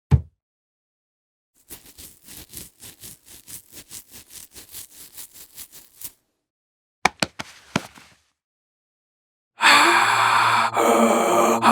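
A string of short sound effects: a low thump, then rapid ticking for about four seconds, a few sharp clicks, and a loud, dense sustained sound starting near the end.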